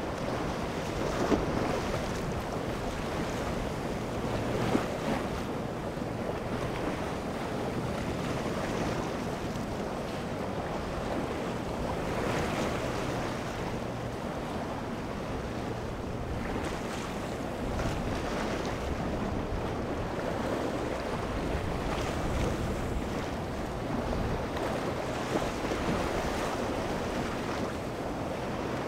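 Sea waves washing and breaking against a rock jetty, rising and falling in small surges, with wind buffeting the microphone and a faint steady low hum underneath.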